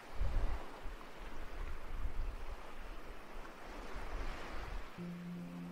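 Waves washing in and out, a soft rushing that swells and falls. Soft held music notes come in near the end.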